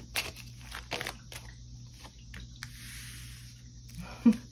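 A deck of oracle cards being shuffled by hand: scattered snaps of the cards and a short sliding rustle, then a single card laid down on the cloth. A knock near the end.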